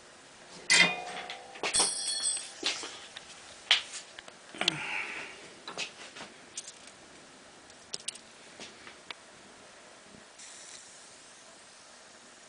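Small handling sounds from hand work: scattered clicks and ticks, with two short ringing metallic clinks about one and two seconds in and a soft rustle around five seconds, growing sparser toward the end.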